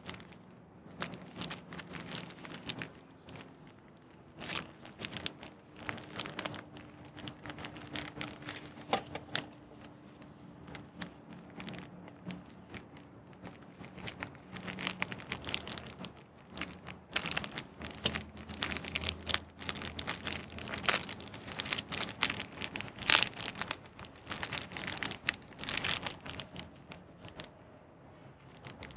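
Plastic packaging and foam wrap crinkling and rustling while being handled and opened, in dense irregular crackles that grow busier past the middle.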